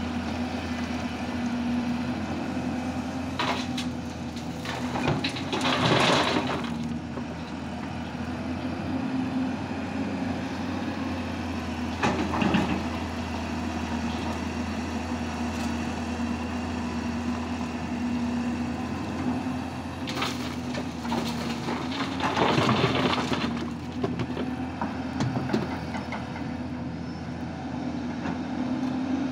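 Hyundai crawler excavator's diesel engine running steadily under load, with the bucket scraping and crunching into rock and soil a few times, the loudest bursts about six seconds and twenty-two seconds in.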